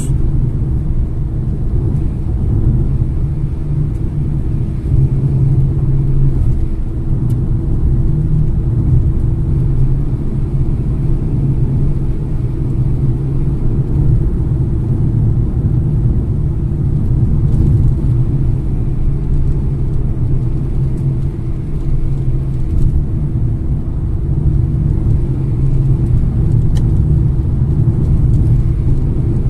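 A car driving steadily along an open highway: an even, low rumble of engine and tyre noise with a faint steady hum, heard from inside the car.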